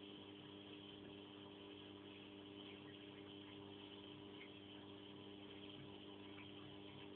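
Near silence: a faint, steady hum with a light hiss, unchanging throughout.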